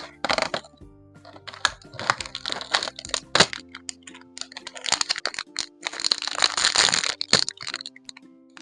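Plastic toy packaging being handled and opened: repeated crinkling and crackling with sharp clicks, loudest about two seconds in and from five to seven and a half seconds. Soft background music plays under it.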